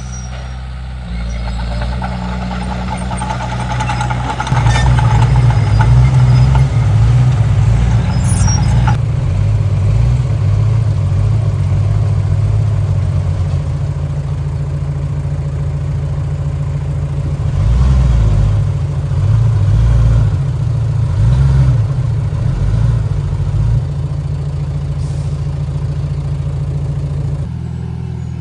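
Komatsu D31P bulldozer's diesel engine running while working, swelling louder in surges about four seconds in and again around eighteen to twenty-three seconds in. For the first nine seconds a higher-pitched noise rides over the engine, then cuts off suddenly.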